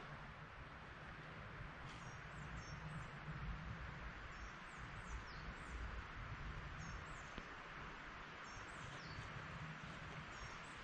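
Forest ambience: small birds chirping many times with short, high, falling notes over a steady rustling background.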